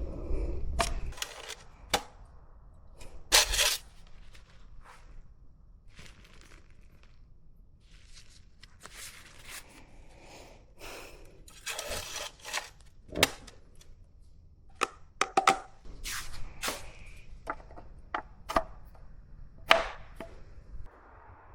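Irregular clicks, knocks and short rustles from hands handling a plastic oil bottle, its cap and a funnel while fresh engine oil is added. A few of the knocks are sharp and loud.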